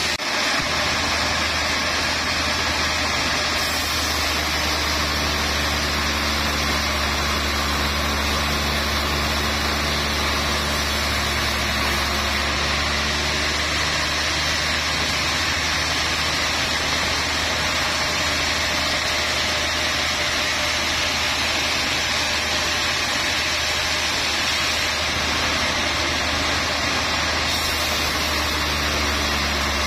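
Large log band saw running steadily, its blade sawing through a trembesi (rain tree) log: a continuous even machine drone with a low hum beneath it.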